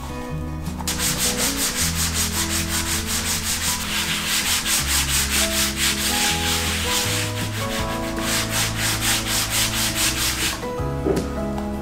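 Cloth rubbing beeswax into a wooden cutting board in brisk back-and-forth strokes, about four or five a second. The rubbing starts about a second in and stops shortly before the end.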